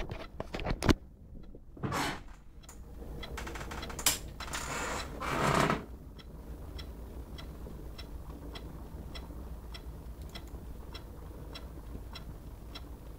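Asus G73Jh laptop making its abnormal noise, the fault sound that comes before the machine crashes to a blue screen. There are a few irregular clicks and rushing bursts at first. From about six seconds in it becomes a steady, even ticking of about two ticks a second.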